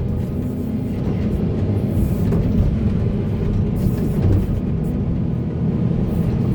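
Diesel engine of heavy earthmoving machinery running steadily, its sound mostly deep and low.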